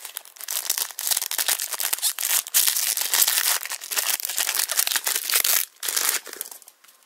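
Foil wrapper of a Panini trading card booster pack being torn open and crinkled by hand: a dense run of sharp crackling that eases off about a second before the end.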